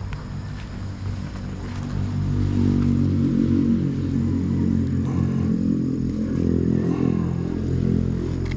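A vehicle engine, probably a small one such as a motorcycle's, running close by. It grows louder about two seconds in and eases off near the end.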